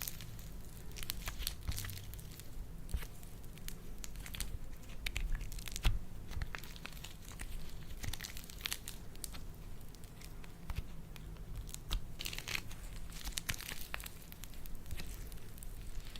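Slime being squished and stretched by hand, making irregular sticky crackles and small pops, with one louder pop about six seconds in.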